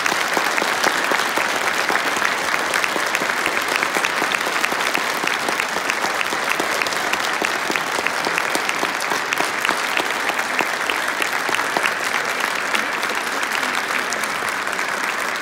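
Audience applauding: many hands clapping in a dense, even wash that holds at a steady level throughout.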